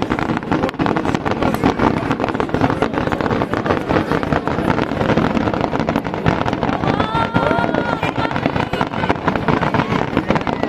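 Fireworks display going off continuously, a dense crackling over a steady rumble, with a few short gliding whistles about seven seconds in.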